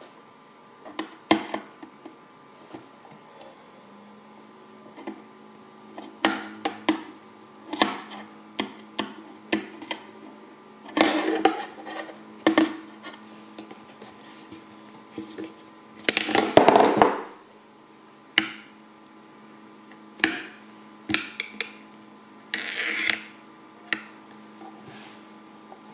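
A spinning object clicking and clattering on a magnetic stirrer's plate, with three longer rattling bursts, over the stirrer's steady hum, which comes in about four seconds in.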